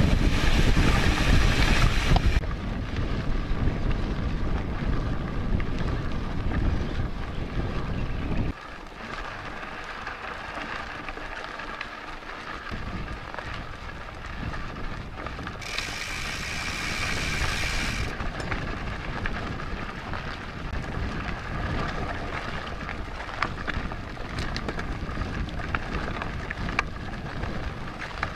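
A mountain bike rolling over a dry dirt trail: tyre noise with scattered rattles and clicks from the rough ground, under wind buffeting the bike-mounted camera's microphone. The wind is heaviest in the first eight seconds or so, then eases.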